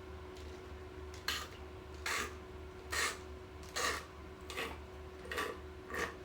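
A person chewing a cheeseburger close to the microphone: seven chews at an even pace, a little under a second apart.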